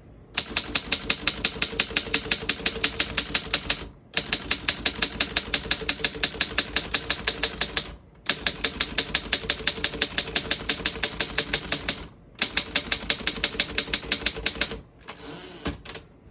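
Underwood Standard desktop typewriter being typed on fast, about eight key strikes a second, in runs of about four seconds with brief pauses between them. The keys strike cleanly and none stick.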